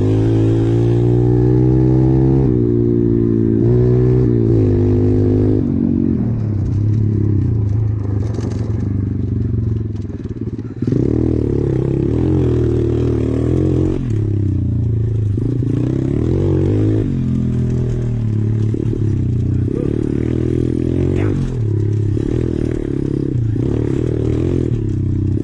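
SSR 125 pit bike's single-cylinder four-stroke engine running under way, the revs rising and falling with the throttle. The engine eases off and dips about ten seconds in, then picks up sharply again.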